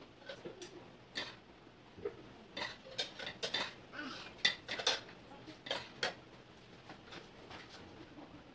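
A spoon and fork clinking and scraping against a plate while someone eats, in irregular short clinks, most of them in the first six seconds.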